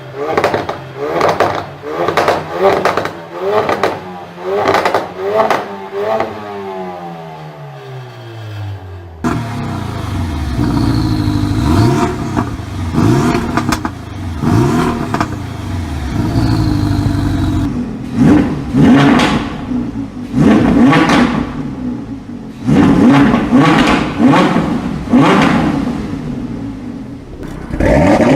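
Performance car engines revving hard through loud exhausts, one after another. First a rapid string of rev blips, then the revs falling away in a long, smooth glide. Then more sharp rises and drops in revs, with crackles and pops between them.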